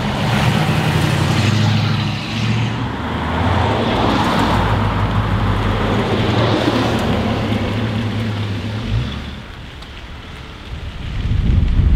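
Classic cars, a Ford Mustang then a second older sedan, driving past at low speed, their engines a steady low rumble that falls away sharply about nine seconds in. A low rumble builds again near the end.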